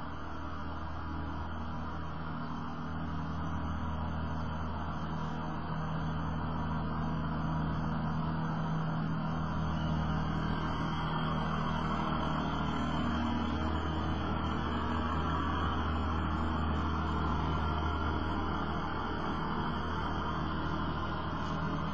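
Steady low hum with an even background rush, with no distinct events; it swells slightly partway through.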